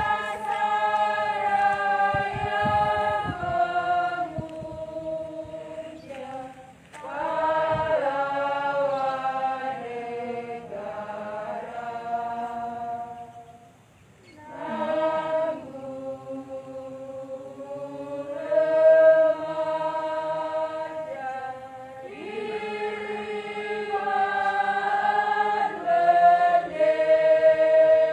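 A group of people singing a song together in long held notes, line by line, with brief pauses between phrases, the deepest about halfway through.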